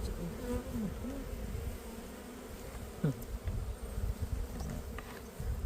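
Honeybees buzzing around an open hive, a steady hum with one close buzz dropping in pitch about three seconds in.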